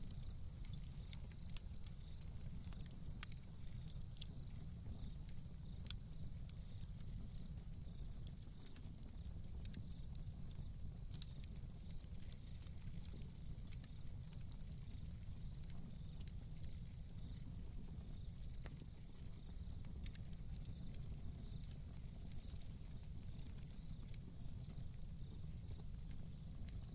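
Faint campfire crackling: scattered irregular pops and snaps over a steady low rumble.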